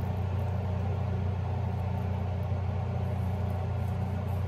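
Steady low mechanical hum, unchanging throughout, as of a running fan or motor.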